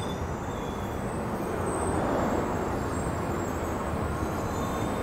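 Amtrak Capitol Corridor bilevel passenger cars rolling slowly past as the train pulls into the station, a steady rumble of wheels on the rails.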